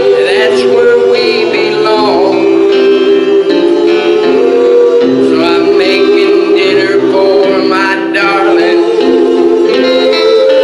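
Live gospel music on an electronic keyboard, amplified through a PA: held chords under a wavering lead melody line.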